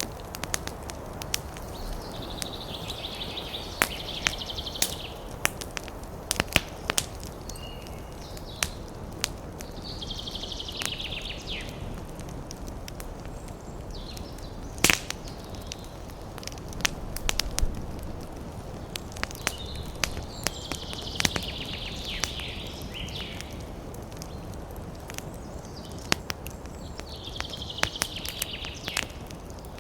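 Wood fire crackling in a fireplace: irregular sharp pops and snaps over a steady low rush of burning, with one loudest pop about halfway through. A higher rasping sound of about two seconds comes and goes about every eight seconds.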